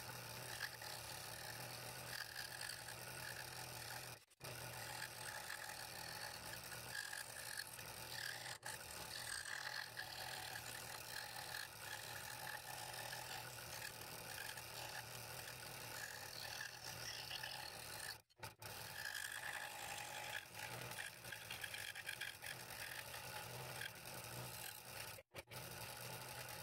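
Scroll saw running with a fine number three blade, cutting a thin piece of scrap wood: a steady buzz of the motor with the blade rasping through the wood. It breaks off abruptly for a moment three times.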